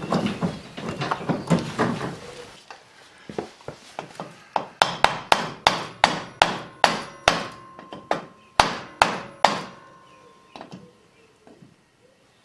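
Hammer blows on a wooden block held against a lawn tractor's front stub axle, driving the stub axle out of its steering bearings: a run of about a dozen sharp strikes, roughly two a second, with a faint metallic ring, then a few lighter taps. A couple of seconds of clattering come before the blows.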